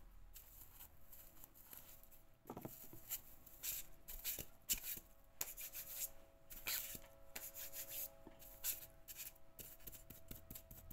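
Soft, irregular rubbing and rustling of fingers pressing and adjusting a strip of guipure lace on a foam head form, with light crackles as the lace is handled.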